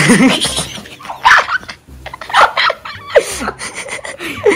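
A man laughing in several short bursts, about a second apart.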